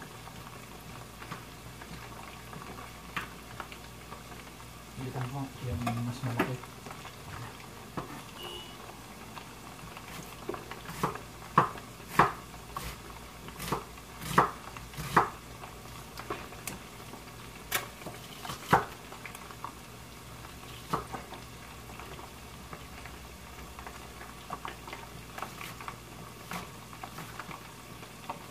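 Chef's knife chopping onion and garlic on a wooden cutting board: irregular sharp chops, coming thickest and loudest through the middle. Underneath, chicken frying in hot oil in a pot sizzles steadily.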